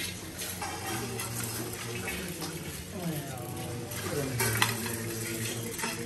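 Rice grains poured and swept over several metal mandala offering plates at once: a continuous rattling and scraping of grain on metal, with small clinks. A low, steady group chant runs underneath.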